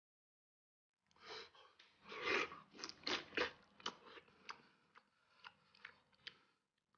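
After about a second of dead silence, close-up eating of a braised pork trotter starts: biting into the sticky skin and chewing with the mouth full. The sound is loudest in the first couple of seconds, then thins to slower chewing with separate sharp clicks.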